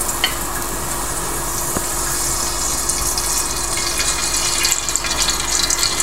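Cooking oil poured in a steady stream into a pot on the stove: an even, liquid hiss that grows brighter toward the end.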